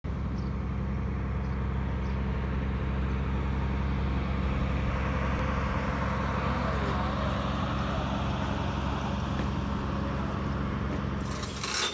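A truck engine idling steadily, a low even hum with no revving, cutting off abruptly just before the end.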